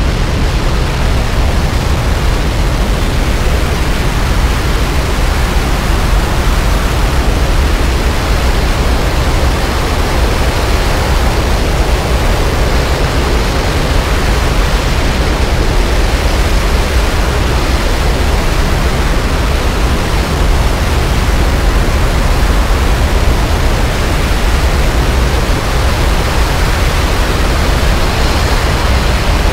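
A cluster of Rocketdyne F-1 rocket engines at full thrust in a static test firing: a loud, steady roar of rushing noise, heaviest in the deep bass, holding level without change in pitch.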